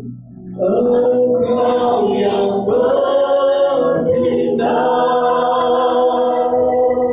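A man singing an Indonesian worship song through a microphone with electronic keyboard accompaniment. After a short break just at the start, he sings long held notes.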